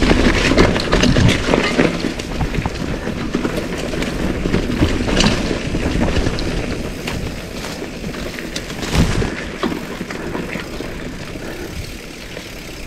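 Mountain bike rattling and crunching over rough dirt trail, many small clicks and knocks over a low rumble, dying down toward the end as the bike slows.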